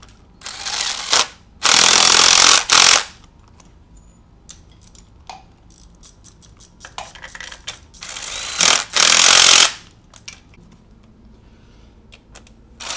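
Cordless impact wrench running bolts in on a socket extension, in several short runs: two near the start, one about eight seconds in and another starting near the end. The bolts joining the transmission bellhousing to the engine are being run in snug, to be torqued later.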